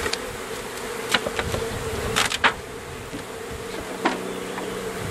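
A mass of honeybees buzzing steadily around an open hive. A few sharp knocks come through about a second in, twice just after two seconds, and once near four seconds.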